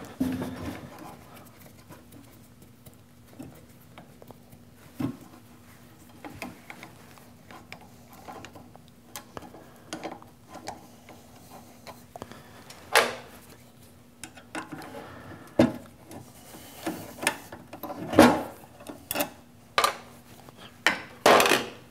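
A T-handle hex key turning M6 screws out of a lathe's steel counter-shaft bracket: scattered small metal clicks and clinks, with several louder metal clanks in the second half as the bracket is worked loose. A faint steady hum runs underneath.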